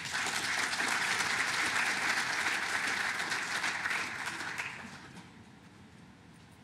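Audience applauding, starting at once and dying away after about five seconds.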